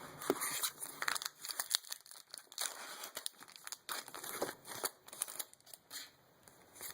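Foil Pokémon booster pack wrapper crinkling in the hands as it is torn open, a run of irregular crackles and rips.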